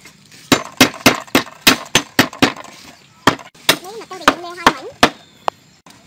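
Knife chopping on a wooden cutting board: a quick run of sharp strokes, about three a second, then slower, irregular strokes through the rest.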